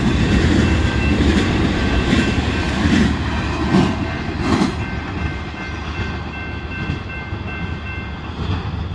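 Intermodal freight train's trailer-loaded flatcars rolling past with a steady rumble, wheels clacking over the rails a few times between about three and five seconds in. The rumble then eases off. A faint, steady high ringing, typical of the grade-crossing bell, runs underneath.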